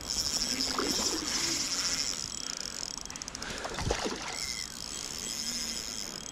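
Hooked trout thrashing and splashing at the surface about four seconds in, with a smaller splash near the start, over the steady high whirr and fine clicking of the spinning reel as the fish is played.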